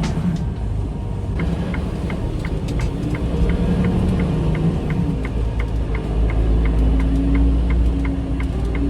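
Semi-truck cab with the diesel engine running in a low steady rumble; about a second and a half in, the hazard flashers are switched on and their indicator starts ticking steadily, about three ticks a second.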